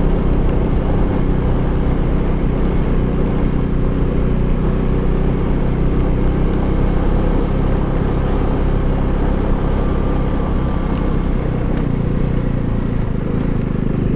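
KTM Duke 390's single-cylinder engine running at a steady speed on the move, over an even hiss of wind and road noise.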